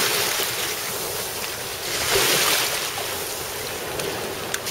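Small sea waves washing onto a pebble shore, one wash swelling about two seconds in and another starting near the end, with wind on the microphone.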